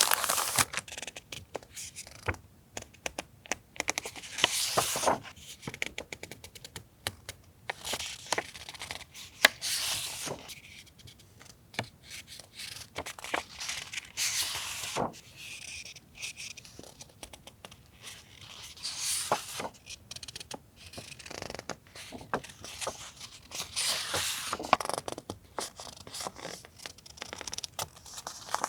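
Paper and stationery being handled by hand: sheets rustling and sliding against one another in short, irregular bursts, with a few sharp clicks between them.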